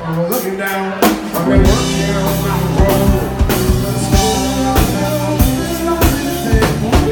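Live rock band playing loudly through a PA: drum kit keeping a steady beat under amplified electric guitars and bass.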